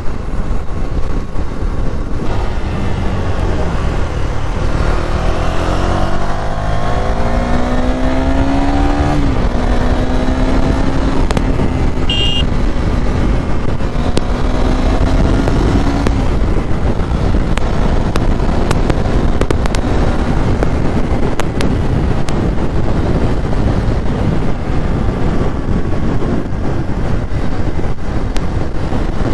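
Motorcycle riding along a road, with steady engine and road rumble and wind on the microphone. About four seconds in the engine pitch climbs for several seconds as it speeds up, then holds steady for a while before fading back into the general road noise.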